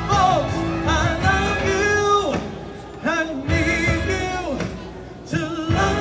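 A man singing a ballad through a handheld microphone and outdoor PA over accompaniment, in long held notes that slide and waver, with short pauses between phrases.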